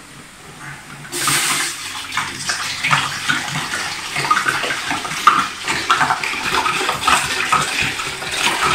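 Water pouring into a large cooking pot, starting suddenly about a second in and running on with a steady splashing rush as the pot fills.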